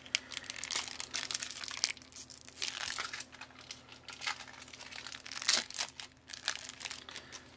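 Foil trading-card pack wrapper being torn open by hand and crinkled, in irregular crackly bursts.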